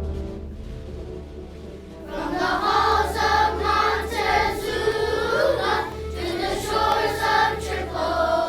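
A choir of children singing with instrumental accompaniment; the voices come in about two seconds in, after a few held instrumental notes.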